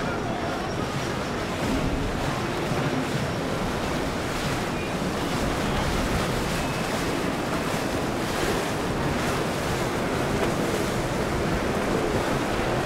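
Steady rush of wind on the microphone and moving water as a motor yacht cruises past, with a low rumble underneath.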